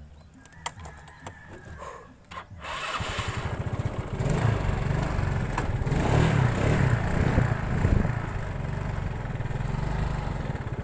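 A few light clicks, then a small vehicle engine starts about three seconds in and runs steadily as the vehicle moves off along the road.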